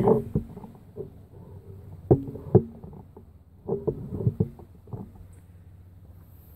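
Handling noise: a few dull knocks and clunks, a pair about two seconds in and a short cluster about four seconds in, with quiet between.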